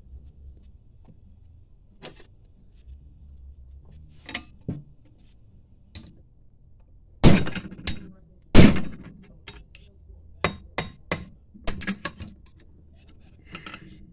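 Hammer blows on metal driving the pickup tube into a Melling high-volume oil pump: two hard strikes with a ringing tail a little past halfway, then about six lighter taps in quick succession. The tube is nearly home but tight, about an eighth of an inch short.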